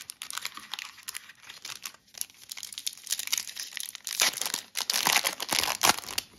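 Foil wrapper of an Upper Deck hockey card pack crinkling and being torn open by hand. The crackle is loudest in the second half.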